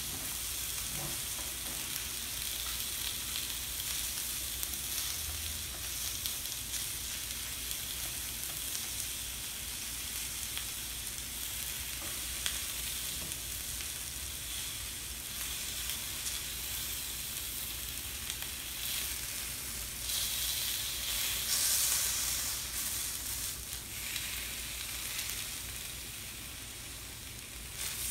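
Skirt steak and sliced peppers sizzling on a hot stainless steel teppanyaki griddle, with flat spatulas scraping and turning the meat on the steel. The sizzle swells about twenty seconds in.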